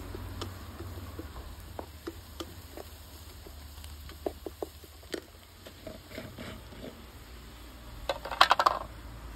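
Wooden spatula stirring a rice mixture in a metal pot, with scattered soft taps and scrapes, then a short burst of loud clattering clicks near the end.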